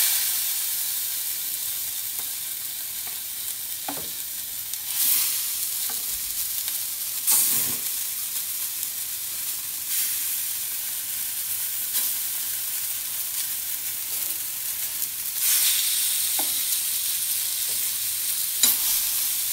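Yogurt-marinated boneless chicken sizzling in hot oil on an iron tawa. The sizzle starts suddenly and flares up several times as more pieces are laid on, with a few light clicks of steel tongs against the pan.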